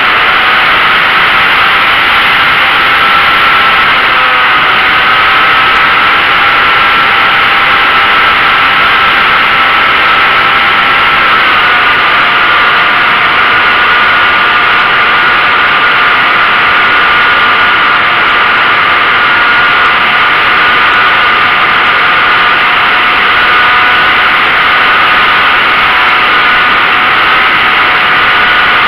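Model airplane's motor and propeller running steadily with a high whine, heard from the onboard camera over loud wind rush. The pitch dips slightly about twelve seconds in.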